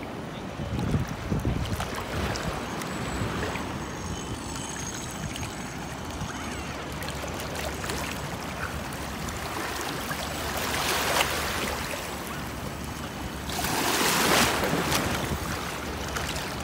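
Gentle waves lapping in shallow water at the shoreline, with wind buffeting the microphone. Twice the rushing grows louder for a second or so, most strongly near the end.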